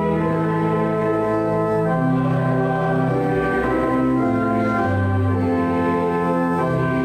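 Church organ playing slow, sustained chords, the bass notes moving as the chords change.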